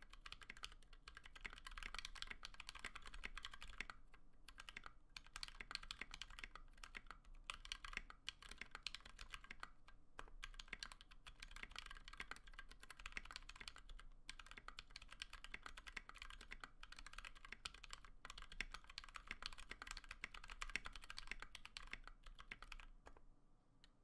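Fast, continuous typing on a Tofu mechanical keyboard with lubed Outemu Sky V2.2 switches on a polycarbonate plate, at about 89 words per minute, broken by a few brief pauses. The typing stops about a second before the end.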